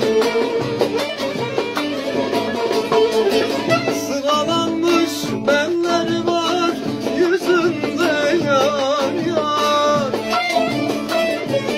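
Bağlama (long-necked Turkish saz) playing a Turkish folk melody, with a man's voice joining in about halfway through with wavering held notes that carry no clear words.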